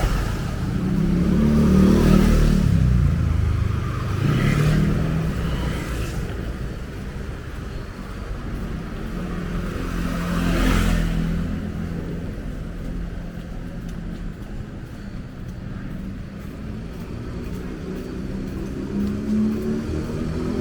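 Street traffic: motor vehicles passing close by one after another, engines rising and falling, the loudest passes about two seconds in and about halfway through.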